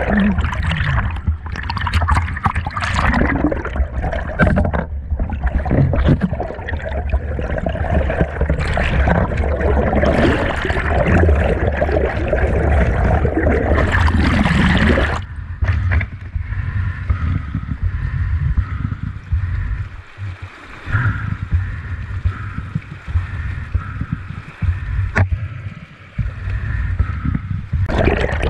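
Stream water rushing and gurgling as picked up by a camera held underwater, with knocks and scrapes from handling among the rocks. About halfway through it suddenly turns quieter and duller.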